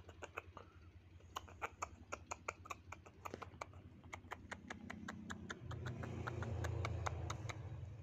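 Fast, irregular clicks and taps from a cardboard box trap being handled and opened, with a pigeon caught inside, and a low rumble that builds in the second half.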